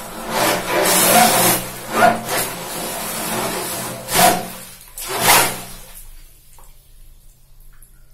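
A 40 mm water jet drive unit running submerged, its motor humming as the jet churns and sprays water in several loud surges. It stops about six seconds in, leaving only faint drips and trickling.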